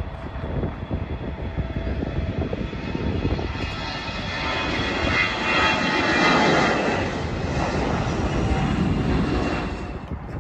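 Jet airliner's engines passing overhead: a broad rushing roar with a faint high whine that builds, is loudest about six seconds in, then fades.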